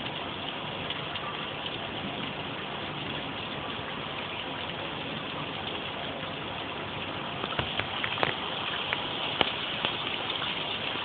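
Heavy rain pouring down steadily, an even hiss, with a few sharp ticks of drops striking something close in the second half.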